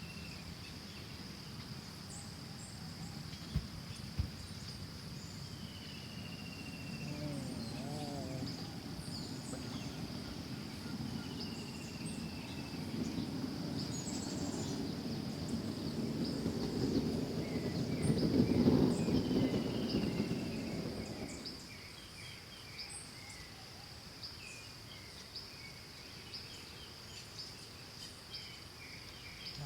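Insects drone steadily on one high note, with scattered short bird chirps. A louder low rushing noise builds from about a fifth of the way in and cuts off suddenly about two-thirds of the way through.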